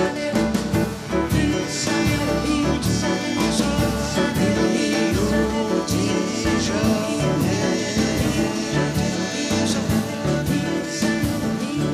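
Live bossa nova band with piano, guitars and drum kit playing at a steady samba beat, with a group of women's voices singing together over it.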